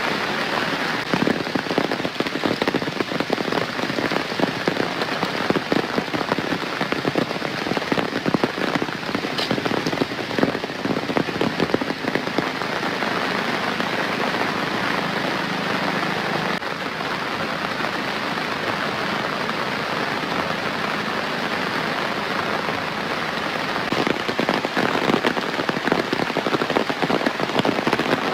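Steady heavy rain falling, with many individual drops striking close by. It grows a little louder near the end.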